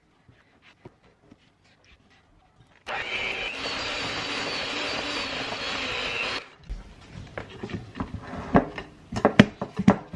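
Electric mixer running steadily for about three and a half seconds, starting and stopping abruptly, as dry ingredients are mixed into ginger molasses cookie dough. After it stops comes a run of knocks and clicks, loudest near the end.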